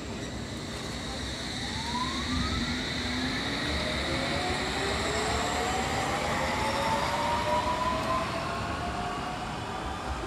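London Underground S7 Stock train pulling away and accelerating, its traction motors giving several whines that climb steadily in pitch over the running rumble of the wheels.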